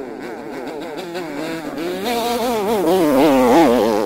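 Dirt bike engine revving hard on a steep climb, its pitch swinging up and down again and again under the throttle, growing louder as the bike comes close, then dropping away near the end.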